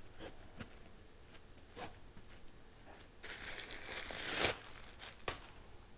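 Handling noise: a few light taps and knocks, then a crinkling rustle about three seconds in that lasts over a second and peaks near the end of it, followed by one more tap.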